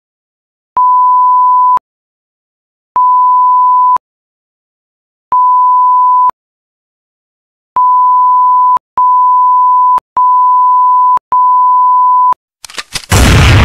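Countdown beeps from an intro sound effect: seven identical steady, single-pitched electronic beeps about a second long each. The first three are spaced about two seconds apart and the last four come in quick succession. Near the end a loud noisy burst hits and fades away.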